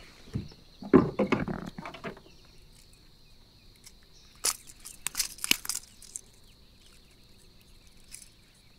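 Handling a landed bass aboard a plastic fishing kayak: a cluster of knocks and thumps about a second in, then sharp metallic clicks and rattles around four to six seconds in as fishing pliers work the treble hooks of a Rapala lure. A faint steady high whine runs underneath.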